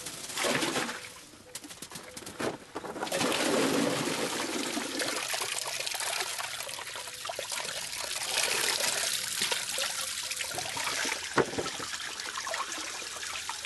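Water running steadily, beginning about three seconds in, after a few light knocks and clatters at the start.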